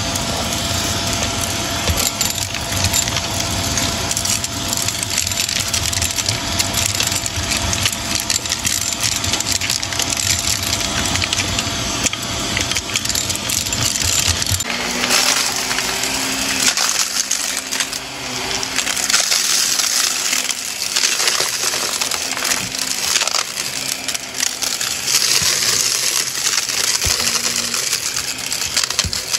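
Shark upright vacuum cleaner running on carpet, with a dense, crunchy crackle and rattle of small hard debris being sucked up. About halfway through, the low hum drops out and a higher hiss carries on with the crackling.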